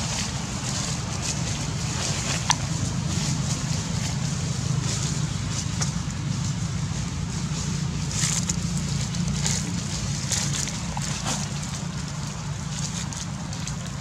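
Steady outdoor background noise with a low hum underneath, scattered short rustles and a single sharp click about two and a half seconds in.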